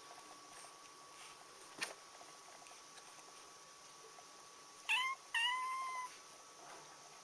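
Domestic cat meowing twice about five seconds in, a short call then a longer one. A single sharp tap comes about two seconds in.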